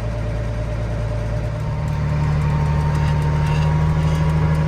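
Diesel engine of a Case IH 8940 tractor running steadily under the cab; about a second and a half in its note steps up and it grows slightly louder.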